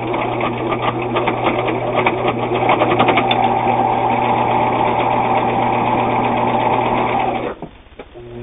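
Viking Husqvarna Optima 150 electric sewing machine stitching through eight layers of heavy denim, with a steady motor hum under the fast clatter of the needle. It stops about seven and a half seconds in and starts again just at the end.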